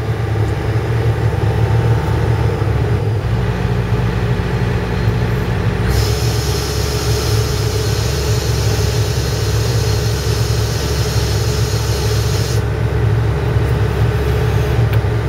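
John Deere excavator's diesel engine running, its note shifting about three seconds in and again at six seconds. From about six seconds until near the end, a loud hiss rides over the engine.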